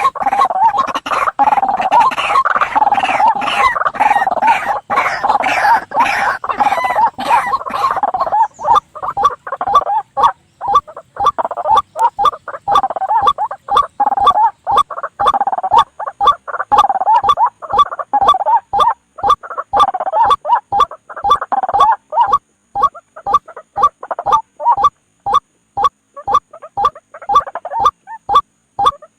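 White-breasted waterhen (ruak-ruak) lure call: its loud, croaking "kru-ak" call repeated over and over. For about the first eight seconds the calls run together densely; after that they come as separate, evenly repeated calls, roughly two a second, with brief gaps.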